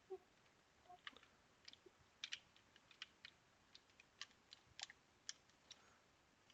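A scattered run of faint, sharp clicks and ticks, about fifteen at uneven spacing, from a handheld game console's small plastic parts being handled and fitted together.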